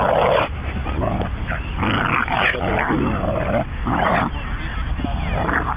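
Staffordshire-type terriers playing rough, giving a string of short barks and yips, about half a dozen, with a little whining between them.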